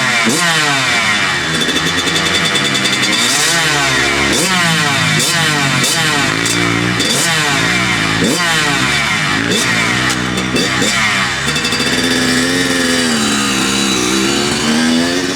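Kawasaki KX100 single-cylinder two-stroke dirt bike engine being revved hard and backed off over and over, its pitch climbing and dropping about once a second. Near the end it makes a slower, longer dip and climb.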